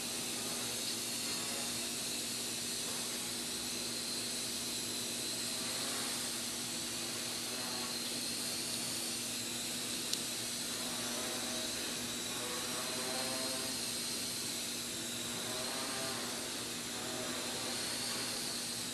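Small quadcopter's motors and propellers whining steadily in flight, the pitch wavering slightly as the rotor speeds adjust. A single sharp click comes about ten seconds in.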